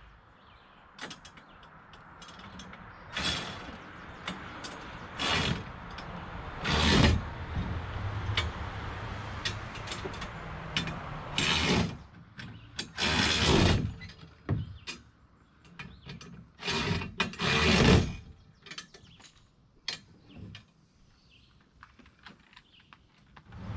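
Ratchet wrench clicking in about seven short bursts as bolts are run into the steel crossbar frame of a dredge's pontoons, with small metal clicks and knocks between the bursts. The last few seconds are quieter.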